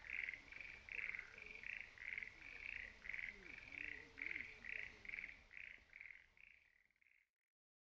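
A chorus of Schlegel's green tree frogs calling: a steady run of short rattling notes, about two and a half a second, faint, fading out near the end.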